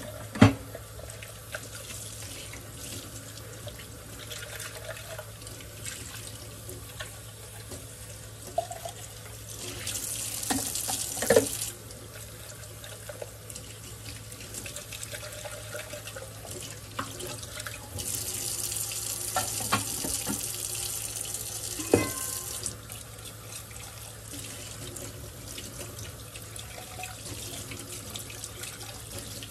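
Kitchen faucet running into a stainless steel sink while cups are rinsed by hand under the stream. The splashing grows louder for a couple of seconds about a third of the way in and again for several seconds past the middle. A few sharp knocks come through, the loudest just after the start.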